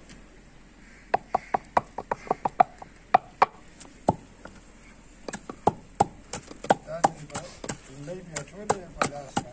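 Stone pestle pounding in a wooden mortar: a run of sharp knocks, several a second, starting about a second in and coming in uneven bursts.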